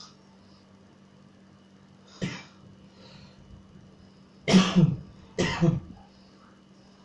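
A sleeping person snoring with rough, rattling snorts: one short snort about two seconds in, then two loud, longer ones back to back near the middle.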